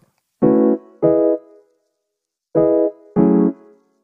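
Background music: short, clipped keyboard chords, four of them in two pairs with silence between.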